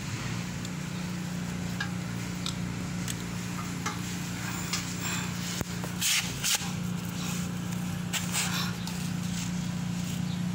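12-volt DC heavy-duty air compressor switching on as it is powered from a car battery, then running with a steady low hum. A few sharp knocks and rattles come about midway.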